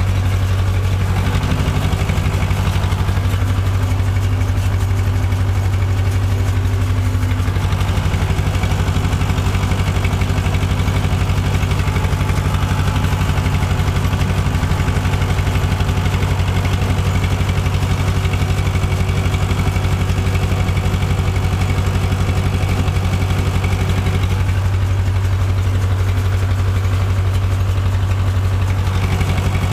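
Tractor engine running steadily while towing a baler whose pickup is gathering cut grass into a bale.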